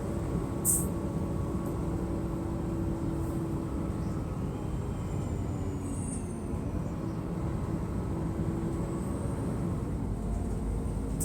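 Mercedes-Benz O500MDA bus diesel engine running steadily, its hum dipping and changing pitch about six seconds in, with a short sharp click near the start.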